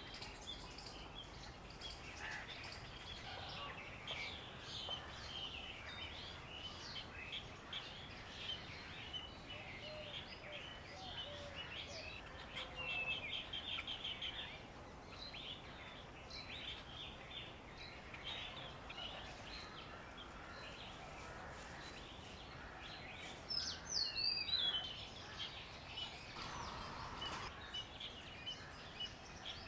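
Many small birds chirping and twittering in short repeated calls, with a rapid trill about thirteen seconds in and a louder sweeping call near twenty-four seconds.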